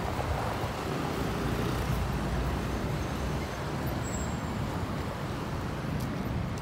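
Road traffic: motor vehicles passing with a steady low engine and tyre rumble.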